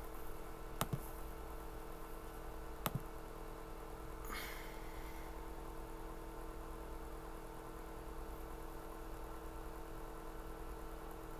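Faint steady electrical hum, the room tone of a microphone setup, with two sharp clicks about a second and three seconds in.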